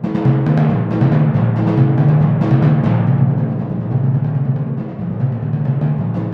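A set of four copper-bowled pedal timpani played solo in a fast, continuous run of mallet strokes. The strokes move between drums, each drum ringing at its own pitch, with a brief dip in loudness about five seconds in.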